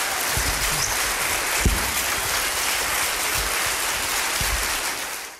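Large audience applauding, dense, steady clapping with a few dull low thumps underneath; it cuts off abruptly at the end.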